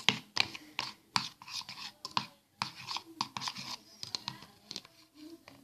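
Stirring utensil scraping and clicking irregularly against a small pot while mixing thick hair conditioner and shampoo for slime.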